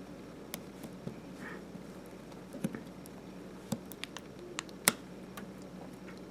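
Scattered small, sharp clicks and taps of a plastic pry tool and fingers working on the opened Kindle Fire tablet, about eight in all, the loudest a little under five seconds in, over a steady low hum.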